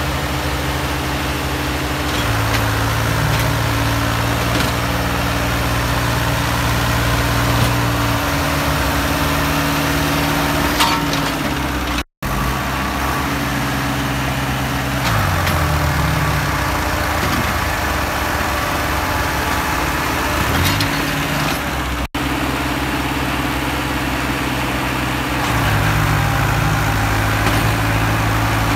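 Diesel engines of a Sonalika DI-55 and a New Holland 3630 tractor pulling against each other in a tug-of-war. They run hard under heavy load, their pitch sagging and picking up again several times as they labour. The sound breaks off sharply twice.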